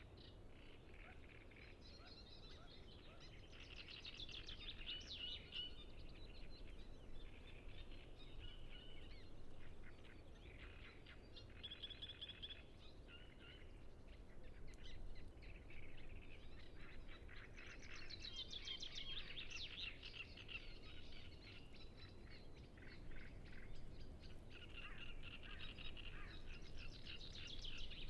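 Great reed warbler song: loud, harsh, chattering phrases of repeated notes, coming in bouts of a few seconds with short pauses between, over a faint low background rumble.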